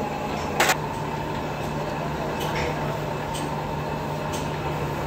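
A single sharp clank of a steel hand tool against the metal workpiece about half a second in, then a few faint ticks, over a steady low workshop hum.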